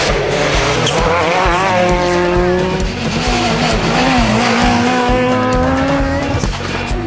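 Rally car engines at high revs through a bend, the note dipping and then climbing as the cars power out, fading about six seconds in. Background music with a steady beat runs underneath.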